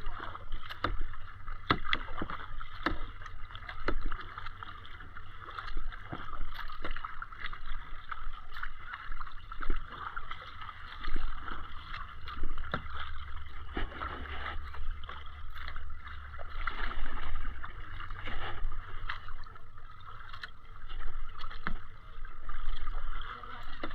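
Kayak paddling: the paddle blades dip and splash water in repeated strokes, with water moving around the hull.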